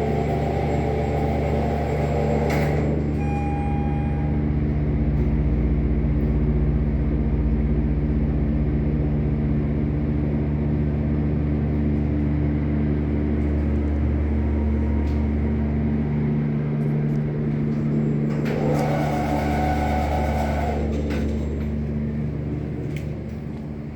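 Schindler hydraulic elevator's pump motor running with a steady, even hum, easing off near the end. A short beep sounds a few seconds in.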